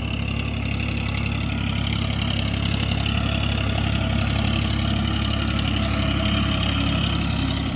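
Farmtrac 45 tractor's diesel engine running steadily as it pulls a disc harrow through dry soil, growing slightly louder as it draws nearer.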